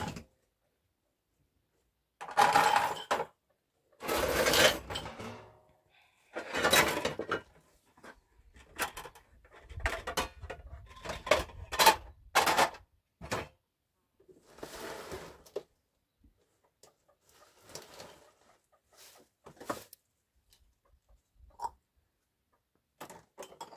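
Kitchenware clattering and scraping as pots, jars and containers are handled and moved about on a stone shelf, in separate bursts with short knocks and clinks, growing sparser toward the end.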